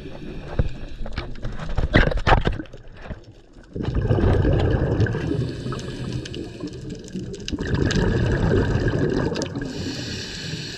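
Muffled water noise heard underwater through the camera's housing: sharp clicks and knocks in the first couple of seconds, then a steady gurgling rush from about four seconds in.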